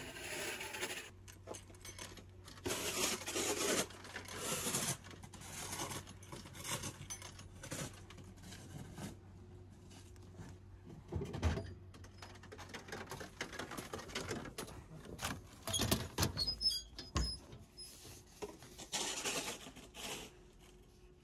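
A street vending machine being used: irregular rustling and clicks, with a few dull thumps about halfway through and again later as a packaged quiche is bought and taken out of the pickup tray, over a faint steady hum.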